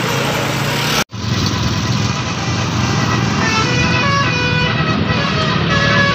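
Bus engine and road traffic, broken by a sudden brief dropout about a second in. From about halfway through, a multi-tone 'telolet' bus horn plays a tune of short notes stepping between pitches over the engine rumble.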